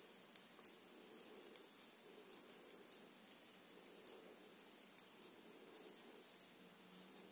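Faint, irregular light clicks of knitting needles tapping together as stitches are worked in wool, a few clicks a second over low room hum.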